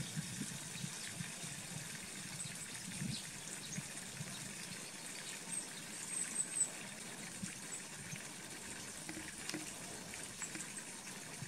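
Steady outdoor background hiss, with a few faint, very high chirps about six seconds in.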